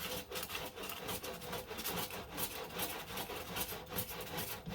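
Sandpaper on a small hockey-puck sanding block rasping back and forth over freshly set body filler in rhythmic strokes, knocking down the high spots of the fill along the panel's curve.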